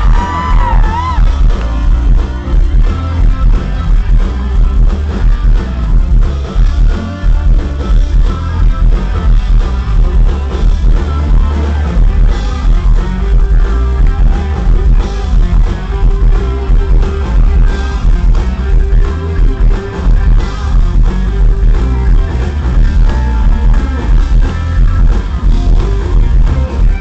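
A live country-rock band playing loud through a PA: electric guitars over a heavy, steady beat, with singing.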